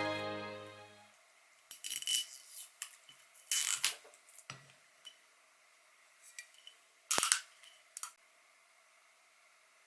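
Background music fading out, then a series of light, irregular clicks and clinks of small hard objects being handled, with the two loudest about three and a half and seven seconds in.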